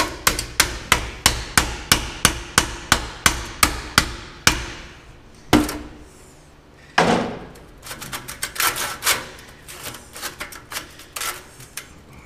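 Hammer driving a chisel against a stuck exhaust band clamp. A rapid run of sharp metal strikes, about four a second, lasts some four and a half seconds, followed by a single blow. A heavier ringing strike comes about seven seconds in, then scattered lighter knocks.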